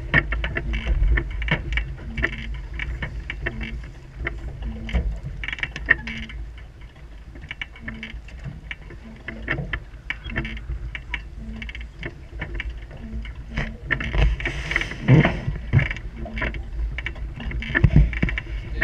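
Wind buffeting the microphone and water slapping and splashing against a Laser sailing dinghy's hull as it moves through choppy water, louder for a couple of seconds about three-quarters of the way through.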